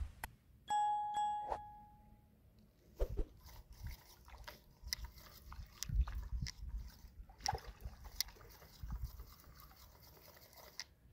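A bell-like notification chime from a subscribe-button animation rings about a second in and fades out. It is followed by faint, scattered clicks and soft knocks of fishing tackle, with small water sounds as a float rig settles on a lake. One knock about six seconds in is louder than the rest.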